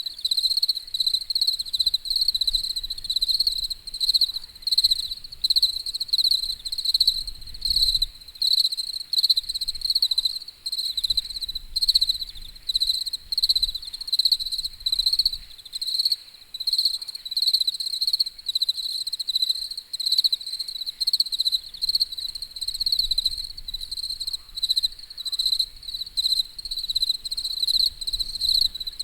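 Crickets chirping in a continuous, rapidly pulsing high-pitched trill, with a faint low rumble coming and going underneath.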